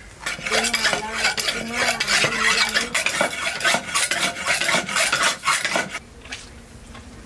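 Curved iron blade scraping and knocking over a fire-singed chicken on a bamboo tray, a rapid, uneven run of scraping strokes that stops about six seconds in.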